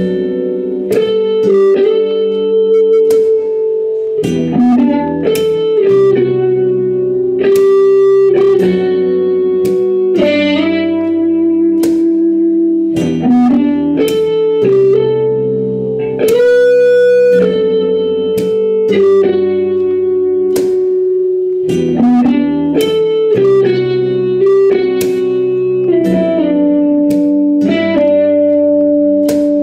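Instrumental guitar music: plucked notes picked out one after another as a slow melody, each ringing on over lower held notes.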